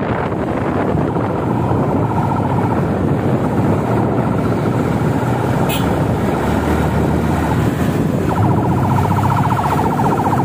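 Steady traffic noise from a slow-moving convoy, with an escort siren warbling rapidly: it comes in faintly about a second in, fades, and returns loudly about eight seconds in.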